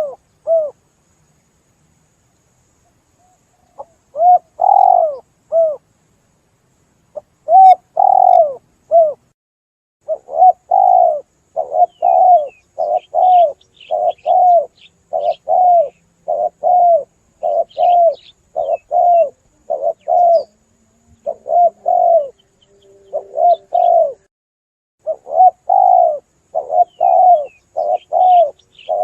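Spotted dove (tekukur) cooing as played for a hunting lure call: a pause, then two three-note coo phrases, and from about a third of the way in an unbroken run of coos, roughly two a second, each note rising and falling in pitch. Faint high chirps of small birds sound over the coos in the middle.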